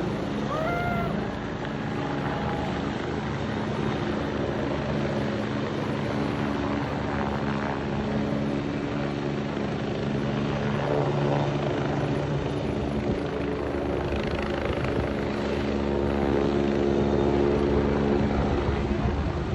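Helicopter running close by, a steady rotor and engine drone with even tones that grows louder for a few seconds near the end.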